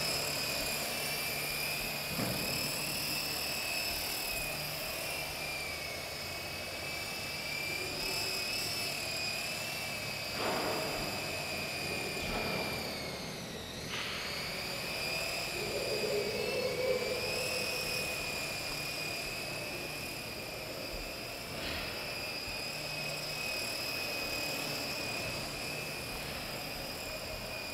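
Art-Tech UFO, a small electric four-channel coaxial RC helicopter, with its motors and rotors giving a steady high whine as it flies. The whine wavers slightly with throttle and dips briefly in pitch about halfway through before coming back up.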